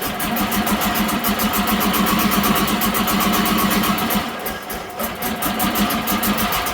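Alfa Romeo 164's 2.0 V6 turbo Busso engine turning with a fast, even pulse. It dips briefly about four seconds in, then carries on.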